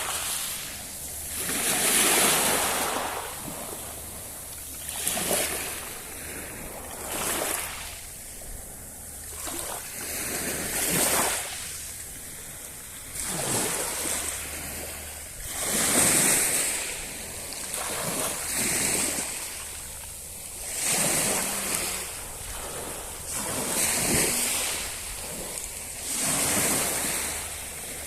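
Sea waves breaking on the shore, the surge of each wave rising and falling every two to three seconds.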